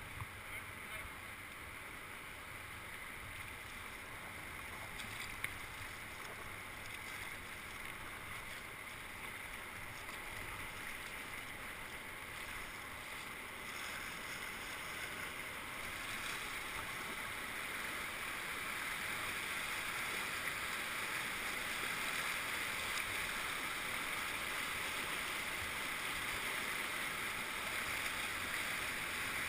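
Rushing whitewater of a river rapid: a steady hiss of churning water that grows louder over the second half as the kayak draws into the rapid.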